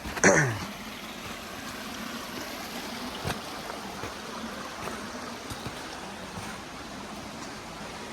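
A creek's water running steadily, with a few faint knocks. A short falling vocal sound comes right at the start.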